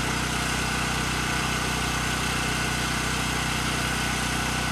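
A small engine running steadily at idle, an even, unchanging drone.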